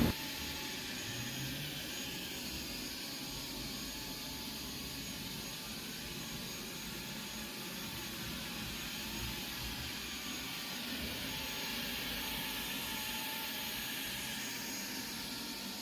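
Robot vacuum cleaners, an iRobot Roomba s9 and a 360 S6, running together: a steady whirring hiss from their suction fans and brushes.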